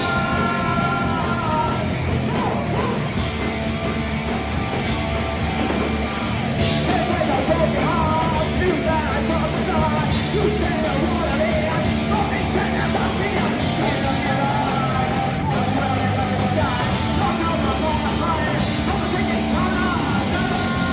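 Rock band music in a punk style, with yelled singing over drums and cymbal crashes.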